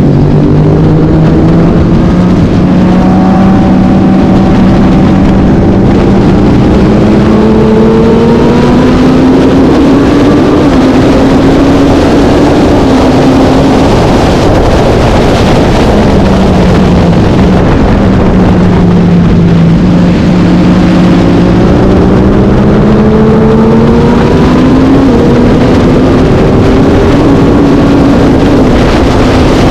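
Vintage road-racing motorcycle engine running hard. Its pitch climbs slowly for about a dozen seconds, drops away just past halfway as it slows, then climbs again.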